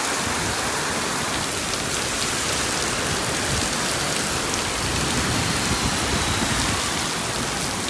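Heavy rain pouring down onto the pavement and street, a steady dense hiss of a downpour that is getting much worse.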